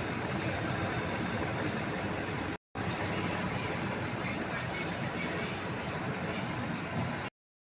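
Lexus LX 570's 5.7-litre V8 idling steadily, running evenly after its cylinder misfire was repaired. The sound drops out for a moment about two and a half seconds in and cuts off just before the end.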